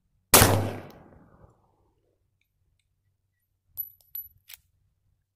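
A single 9mm pistol shot from a Glock 35 fitted with a 9mm conversion barrel: one sharp crack, with echo rolling on for about a second. Near the end come a few light metallic clicks.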